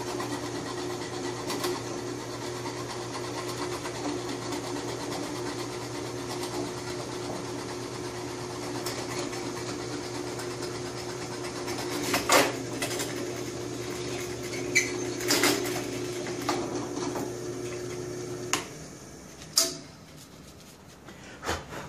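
Benchtop drill press running steadily while drilling holes through wood blocks, with a few sharp clanks from the work and the table. The motor is switched off near the end and winds down, followed by a single knock as a block is handled.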